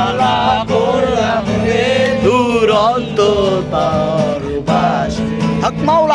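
A man singing a song while strumming a Yamaha acoustic guitar.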